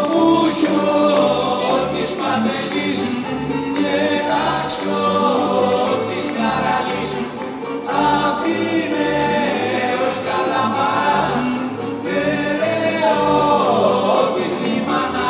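Live rebetiko music: a band with bouzouki, guitar and drums playing a steady dance beat while several voices sing together.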